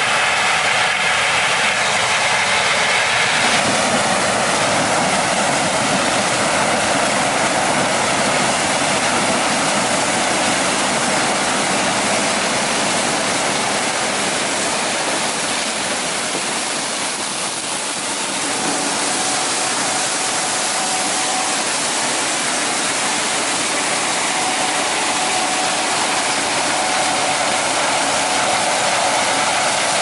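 Gleaner S97 combine and the tractor beside it running while harvesting corn and unloading through the combine's auger into a grain cart, a steady mechanical noise. The sound shifts about three and a half seconds in.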